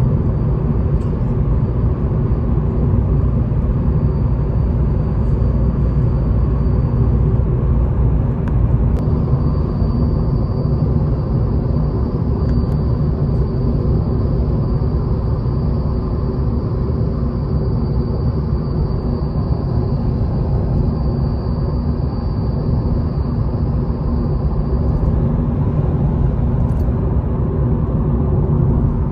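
Steady road and engine noise inside a car's cabin while driving at speed on a dual carriageway, a low, even rumble of tyres and engine. A faint high steady tone sounds through much of it.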